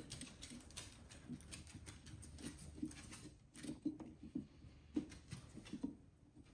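A kitchen knife sawing through pumpkin rind in short strokes, giving a string of faint, irregular crunching scrapes and small knocks, with a corgi's claws clicking on the wooden floor.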